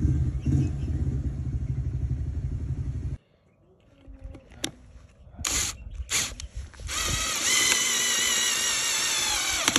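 A loud low rumble that cuts off abruptly after about three seconds. Then come a few clicks and short bursts from a cordless drill-driver, and finally its motor runs steadily for nearly three seconds as it drives a screw through a hairpin table leg's steel mounting plate into the wooden slab, its whine sagging slightly in pitch under load.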